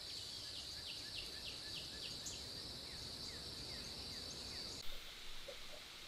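Outdoor summer ambience: a steady high insect drone with a bird calling in a regular series of short falling chirps, about two a second. About five seconds in, a brief thump and then a quieter, duller room tone.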